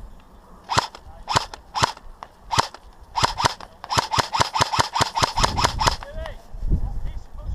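Airsoft rifle firing: four separate shots in the first two and a half seconds, then a quick string of shots at about four a second for nearly three seconds.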